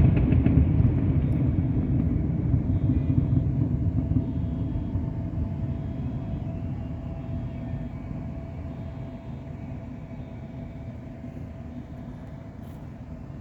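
The last crackles of a fireworks display give way to a low rumble of echoing booms that fades steadily away.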